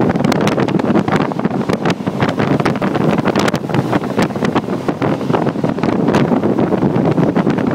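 Wind buffeting the microphone aboard a jet boat at speed, a loud steady rush with constant crackling hits, the boat's engine and water mixed in beneath it.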